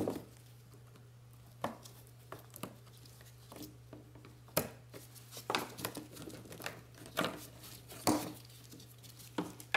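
Fuel-line quick-connect fittings and the fuel pump's wiring connector being unclipped from the pump module on a dropped fuel tank: scattered clicks, taps and light plastic rattles, one sharper click about four and a half seconds in, over a faint steady hum.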